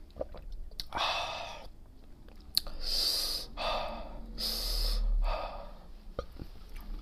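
A man breathing out hard through the mouth in about five noisy puffs, with small wet mouth clicks between them, just after swallowing a cold drink.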